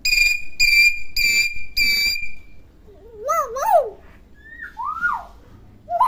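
Hill myna whistling: four short, level whistles in quick succession, then a few wavering notes that glide up and down in pitch.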